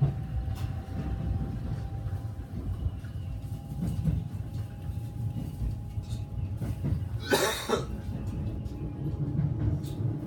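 Steady low rumble of a JR Kansai Airport Rapid train, heard from inside the passenger car, with a faint steady hum. A brief loud burst of noise comes about seven seconds in.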